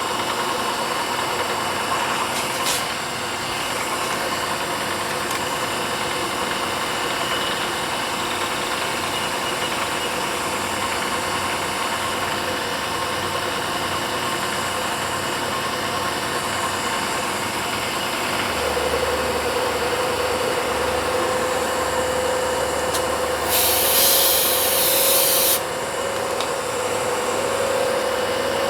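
ProtoTrak CNC mill running a high-speed steel roughing end mill on a full-depth spiral cut into an aluminum block: steady spindle and cutting noise, with a steady whine joining about two-thirds of the way through and a brief hiss lasting about two seconds near the end.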